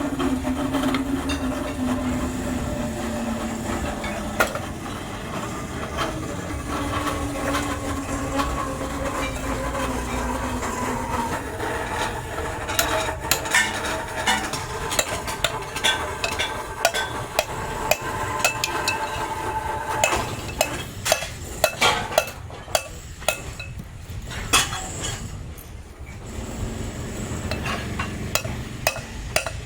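Machinery running with a steady hum in a metalworking shop. From about halfway on, many sharp metal clinks and knocks come from scrap metal parts being handled and struck.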